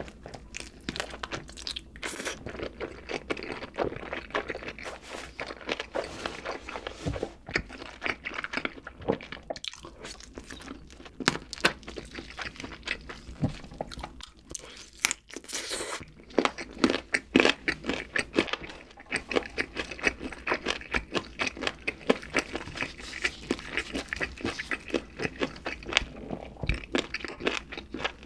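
Close-miked eating sounds: a person biting and chewing crunchy fried food and burger, with dense, irregular crunching and wet chewing throughout.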